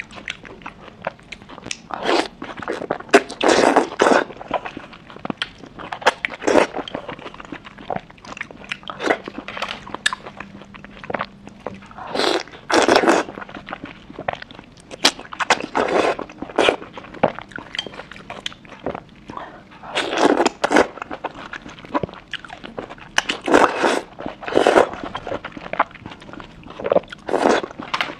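Close-miked eating of skewered oysters in spicy chili sauce: biting and chewing in irregular bursts of mouth sounds.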